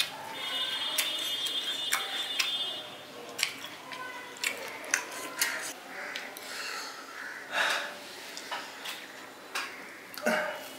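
Close-up eating sounds of a person eating rice and fish curry: wet chewing, lip smacks and scattered sharp clicks. A brief high thin tone sounds in the first few seconds.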